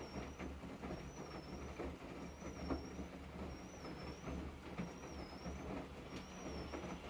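Washing machine drum turning with an abnormal noise: a high, wavering squeak that comes back about once a second, over a low hum and light knocks.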